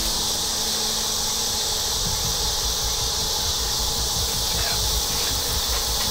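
Steady chorus of late-summer insects, an even high-pitched drone that does not change, with a low rumble underneath.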